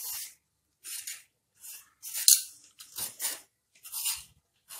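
A hand vegetable peeler scraping the skin off a ridge gourd in about six short strokes, a little under a second apart.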